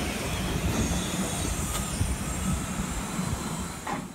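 Steam locomotive moving slowly past at close range: steam hisses around its cylinders over the rumble of the wheels. The sound fades out near the end.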